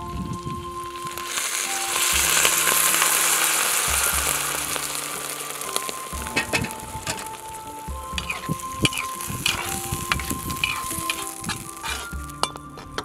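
Diced yak meat with ginger and dried chillies sizzling in a hot wok, the hiss swelling about two seconds in and then easing off. From about halfway, a spatula clicks and scrapes against the wok as the meat is stirred.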